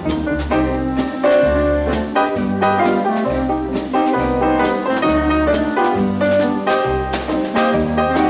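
Instrumental music with a steady beat and a pulsing bass line, no singing: an instrumental break in a sung song.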